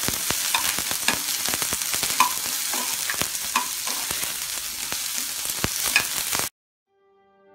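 Sliced onions sizzling in hot oil in a nonstick frying pan as they are browned, while a steel spoon stirs them with frequent scrapes and clicks against the pan. The sizzle cuts off suddenly about six and a half seconds in, and soft music begins to fade in just before the end.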